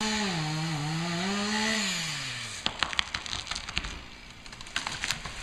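Chainsaw running at high revs, its pitch wavering, then throttled off and winding down about two seconds in. A scatter of sharp cracks and snaps of wood follows.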